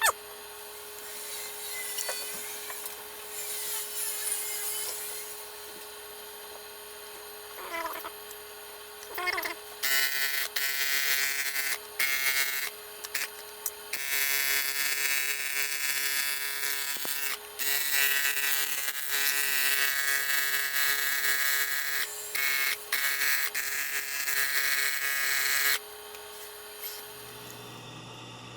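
Small electric screwdriver running with a whine, switched on and off repeatedly in stretches from under a second to several seconds, mostly from about ten seconds in until near the end.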